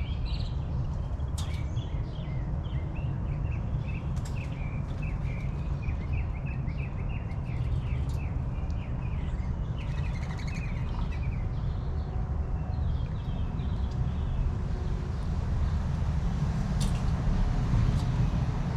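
Small birds chirping in quick repeated series for roughly the first ten seconds, over a steady low background rumble.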